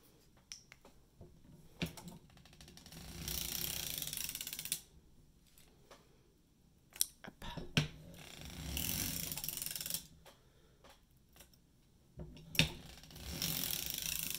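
Hand-cranked circular sock knitting machine being turned back and forth to knit a heel: three passes of mechanical rattling, each about two seconds long, with sharp clicks between the passes.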